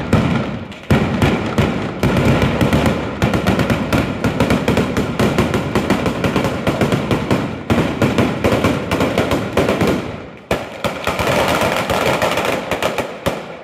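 Ground-level firecracker barrage (an Italian batteria laid along the street) going off: a fast, continuous run of bangs, dipping briefly about ten seconds in, then resuming and stopping near the end.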